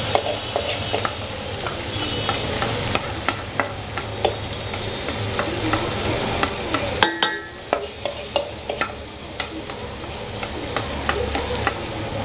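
Mutton pieces and soaked basmati rice sizzling in hot ghee in a cooking pot while being stirred, with a steady frying hiss and frequent sharp clicks of the spoon against the vessel.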